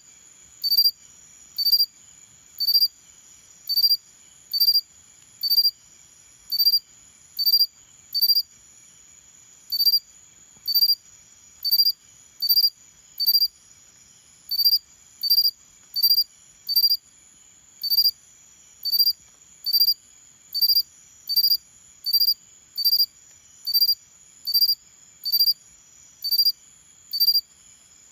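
Xenogryllus cricket calling with its wings raised: short, loud, high-pitched chirps repeating about once a second, over a faint steady high tone.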